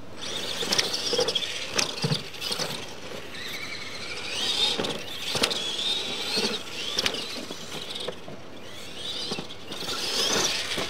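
Two radio-controlled monster trucks racing on dirt: high-pitched electric motor whine rising and falling with the throttle, with tyre noise and several sharp knocks as the trucks land off jumps.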